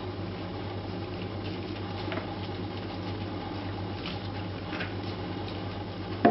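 Shar Pei puppies' paws and claws pattering and ticking on a linoleum floor over a steady low hum, with one brief sharp bump at the very end.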